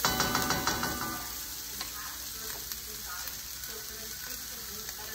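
Onions, garlic and ginger sizzling in a frying pan, with stirring in the pan that is loudest for about the first second before the sizzle settles to a steady level.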